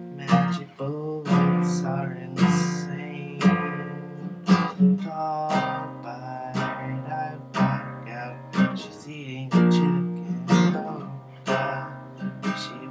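Nylon-string classical guitar strummed in an instrumental break, with a strong strum on the chords about once a second and lighter strokes between.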